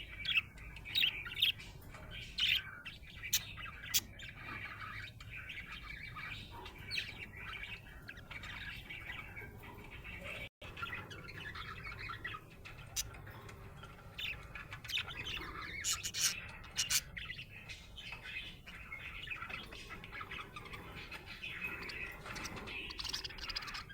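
Budgerigar (budgie) chirping and chattering: a stream of short, sharp chirps and squawks, busiest in the first few seconds and again around two-thirds of the way through. This is the happy chatter of a contented bird.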